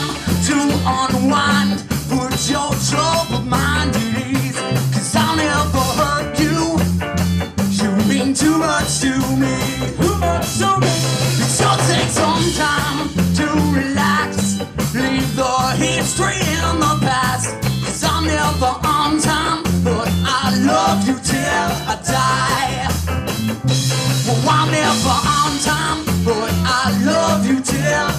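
Live rock band playing a song at full volume: drum kit keeping a steady beat under a moving bass line and hollow-body electric guitar.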